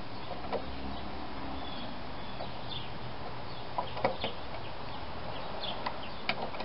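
A few light, scattered clicks of hand work as the ignition coil on a Tecumseh lawn mower engine is tightened down after its air gap has been set. They sit over a steady background hum, with a few short high chirps.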